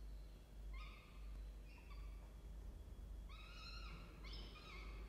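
Peregrine falcons calling in the nest box: four short, high, flat-pitched calls about a second apart, the last two the loudest, over a low steady hum.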